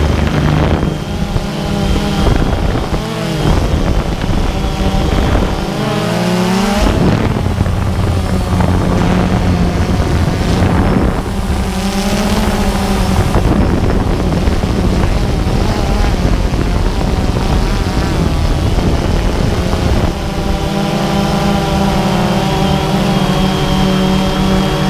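DJI Phantom 2 quadcopter's four electric motors and propellers whirring loudly, heard from the onboard camera. The pitch wavers and slides up and down as the motor speeds change, twice in the first half, then holds steadier near the end.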